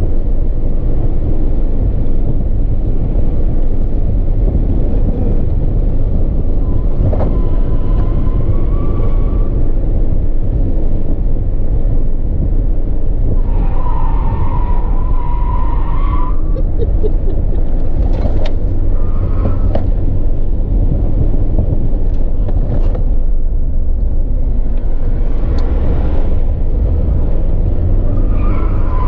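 Car driven hard on a race track, heard from inside the cabin: a loud, steady rumble of engine, road and wind noise. The tyres squeal through corners several times, longest about halfway through.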